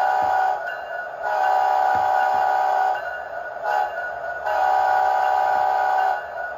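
Diesel horn from the Soundtraxx Sound Value decoder in a Bachmann HO scale NS SD70ACe model, played through its small onboard speaker. A long blast ends about half a second in, then come another long blast, a short one and a final long one: the long-long-short-long grade-crossing pattern. A steady diesel engine drone runs underneath.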